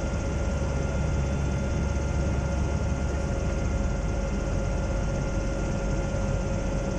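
Steady drone of the Zeppelin NT airship's engines and propellers heard inside the passenger gondola in flight: a constant low rumble with a few steady tones running through it.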